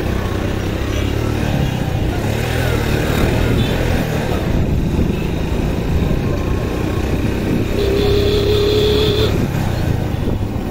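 Motorcycle engine running as the bike rides along, heard from the saddle. Near the end a horn sounds once, a steady tone held for about a second and a half.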